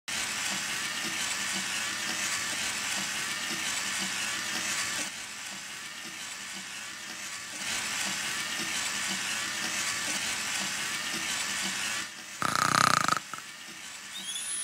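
WowWee Roboraptor robotic toy dinosaur running its motors and gears, a steady mechanical grinding and whirring. It drops quieter for a couple of seconds partway through, and a short louder burst comes near the end.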